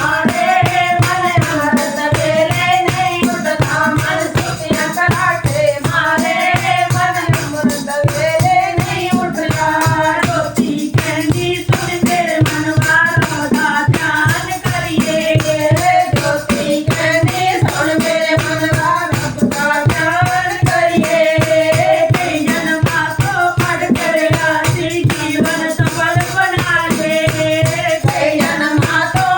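Devotional bhajan (kirtan) music: a wavering melody line over a steady rhythmic percussion beat.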